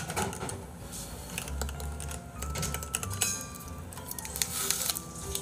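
Soft background music with scattered light clicks and a short crinkle of plastic from a tube ice pop being handled and bitten.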